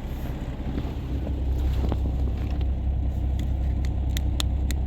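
Semi-truck engine idling as a steady low rumble heard inside the cab, with several short sharp clicks in the last couple of seconds as things are handled.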